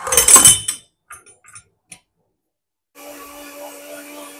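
A loud clatter with a metallic ring, then a few small clicks, then an electric countertop blender switches on about three seconds in and runs steadily, puréeing garlic and spices into a paste.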